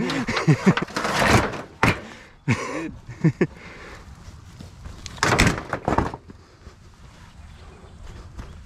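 Knocks and thunks from cover objects being knocked on and handled: a sharp knock about two seconds in, two quick clicks soon after, and a louder rough noise lasting about a second a little past the middle.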